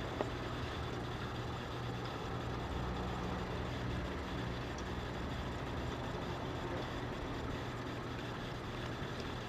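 A steady low mechanical hum with a faint even hiss above it.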